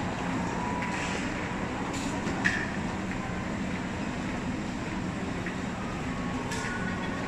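Steady rumbling background noise with a low hum, and a single sharp click about two and a half seconds in.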